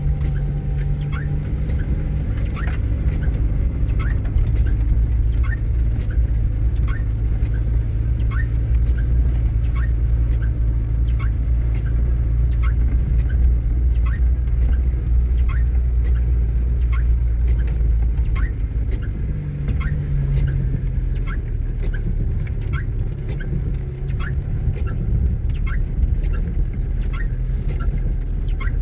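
Low, steady rumble of a car's engine and road noise, with a short high squeak repeating regularly about one and a half times a second.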